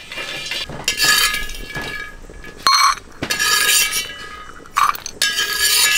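Dry-roasted cocoa beans rattling and scraping in a brass pan as they are stirred and scooped out with a steel spoon, the pan ringing with each scrape. Several scraping bursts, with two short sharp clinks near the middle.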